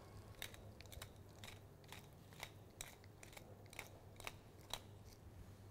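Faint, irregular crunching clicks of a pepper mill grinding black pepper.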